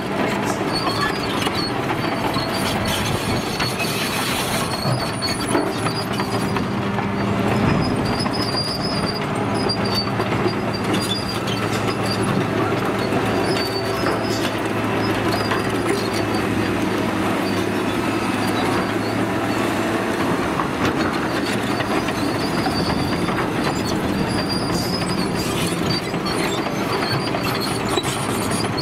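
Caterpillar 953C track loader's diesel engine running steadily as the machine travels, its steel crawler tracks clanking and squealing on and off over the dirt and rock.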